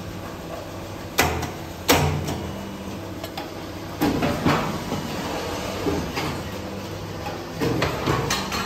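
Die-casting machine working: a steady low hum with sharp metallic clunks. Two come about a second apart near the start, a noisier clatter starts about four seconds in, and more knocks come near the end.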